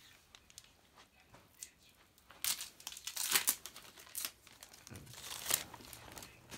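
Foil Pokémon booster pack wrapper crinkling and tearing as it is opened and handled, with louder bursts of crinkling about halfway through and again near the end.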